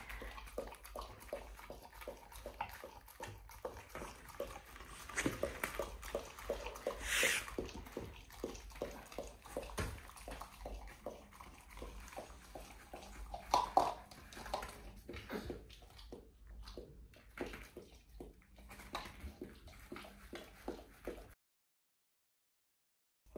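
Chocolate Labrador licking yogurt out of a small plastic cup: a quick run of short, wet licks and laps. A couple of brief louder sounds stand out about seven and fourteen seconds in, and the sound cuts out suddenly near the end.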